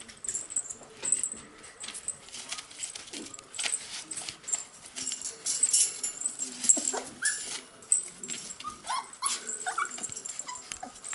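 Cocker spaniel puppies whimpering and yipping, with a run of short, high, rising whines in the second half. Under them, paws scrabble and rustle on newspaper, bedding and the wire pen.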